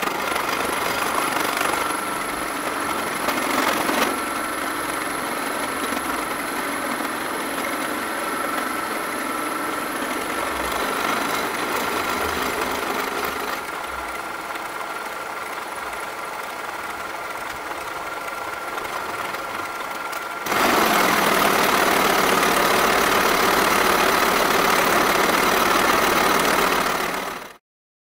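Milling machine face-milling a metal block with a face mill: a steady cutting noise with a thin whine over it. About twenty seconds in it turns louder and harsher, then fades out near the end.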